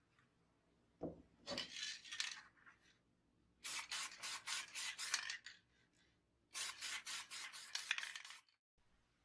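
Gloved fingers scratching at the masking tape on the hub of a freshly spray-painted dispenser part: three bursts of quick scratching strokes, about five a second, with short pauses between.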